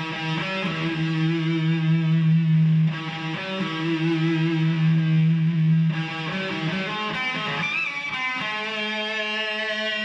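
Electric guitar played solo in long sustained notes: a low note held about three seconds, then another like it, then a quicker phrase with a string bend about eight seconds in, ending on another held note.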